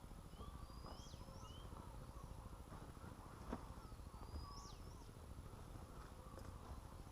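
Faint birdsong from more than one bird: short rising chirps repeated again and again, and a couple of longer whistles that sweep up and then drop, over a low steady rumble. A single sharp tap comes about three and a half seconds in.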